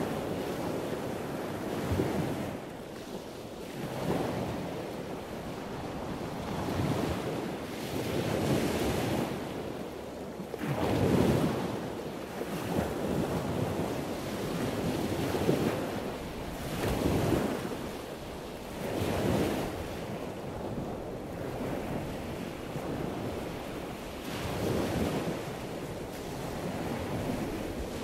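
Wind buffeting the microphone of a camera riding along at speed, swelling and fading in uneven gusts every second or two.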